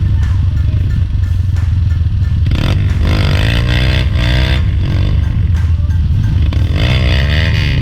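Trail motorcycle engine running steadily, with music with a melodic voice or lead line coming in about two and a half seconds in.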